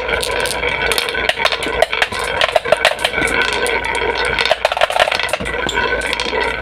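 Marbles rolling and clattering down a marble run: a steady rolling hum with many rapid, irregular clicks as the marbles hit the track and each other.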